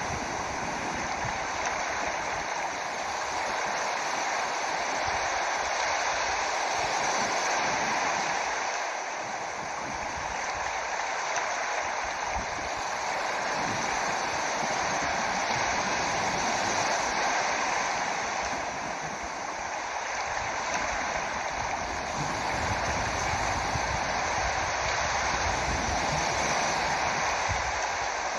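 Water flowing steadily, a continuous rushing without a break.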